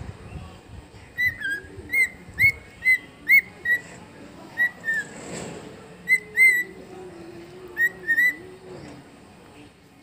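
Cockatiel whistling a string of short, chirpy notes, each bending up and back down, in three runs with short pauses between them.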